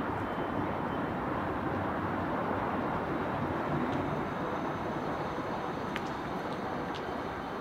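Steady outdoor rushing noise with no clear source, with a few faint ticks in the second half.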